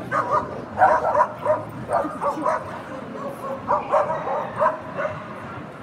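A dog giving short yips and barks in quick runs, with a brief pause midway, over the steady murmur of a crowd.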